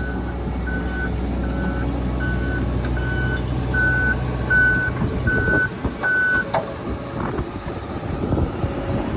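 Hitachi ZX130 excavator's travel alarm beeping, about one beep every three-quarters of a second, over its diesel engine running; the alarm sounds while the tracks are moving. The beeping and the engine drone stop about six and a half seconds in, leaving a rough rumble.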